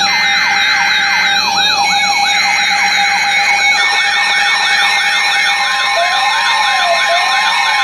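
Several electronic sirens sounding at once, layered and overlapping: a fast rising-and-falling whoop about two and a half times a second, a higher quick warble, and steady tones. About six seconds in, a slower rising-and-falling wail joins in.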